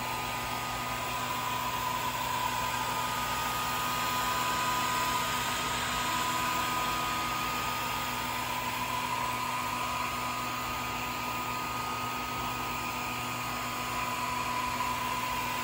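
Swiitol 18-watt diode laser engraver running a burn job: a steady hiss from its cooling fan and air assist, with a steady high whine over it.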